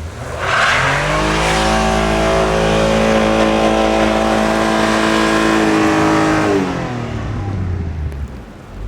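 An engine revs up quickly, is held at high revs for about six seconds, then drops back and runs low before dying away near the end.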